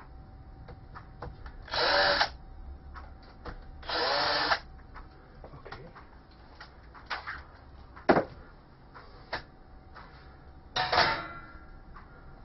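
Cordless drill run in two brief bursts about two seconds apart, spotting the corner hole positions on a number plate through the bracket holes. Later come a few knocks and a clatter near the end as the drill is put down and the plate is handled.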